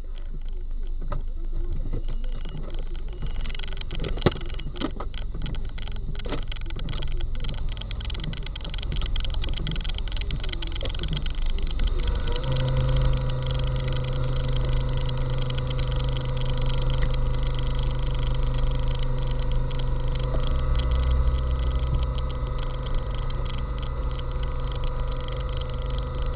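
Vehicle engines idling steadily, heard from inside a car's cabin, with scattered clicks and knocks in the first half. About halfway through, a steady low hum with a higher tone above it sets in and holds.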